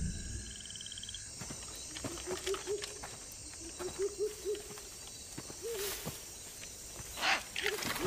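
Night-forest ambience of animal calls: a pulsing high trill that stops about a second in, then short warbling low calls in little runs, scattered clicks, and a louder burst of calls and rustling near the end.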